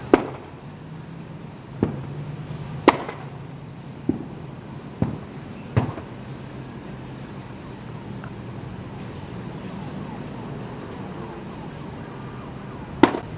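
Sharp bangs and pops from a fire burning through vans and a smokehouse. There are seven irregular reports: a cluster over the first six seconds, then one more near the end. A steady low hum runs underneath.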